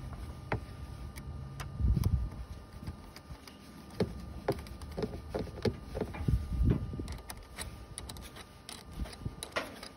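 Open-end wrench working a car battery terminal nut in short strokes: scattered small metal clicks and scrapes with a few dull knocks, the loudest about two seconds in.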